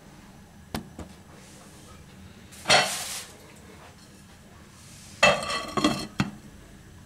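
Glass pot lid with a stainless-steel rim set down on a metal cooking pot, clinking and ringing briefly about five seconds in, with a knock as it settles. Before it come a couple of light clicks and a short scraping noise about three seconds in.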